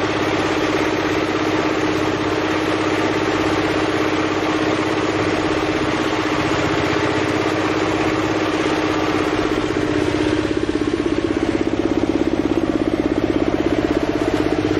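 A small engine running steadily, its beat growing stronger about ten seconds in, over continuous heavy splashing from a mass of pangasius catfish thrashing at the surface for feed pellets.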